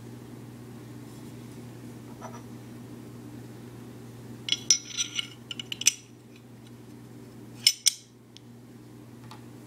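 Metallic clicks and clinks from a Glock 21 pistol being handled, a quick cluster about halfway through and two more near the end, over a steady low hum.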